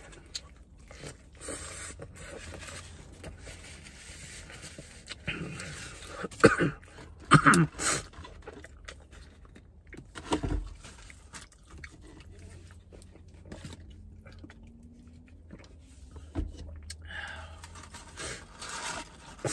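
A person chewing a hamburger close to the microphone, with mouth noises and rustling of the paper wrapper; a cluster of louder short sounds comes about six to eight seconds in.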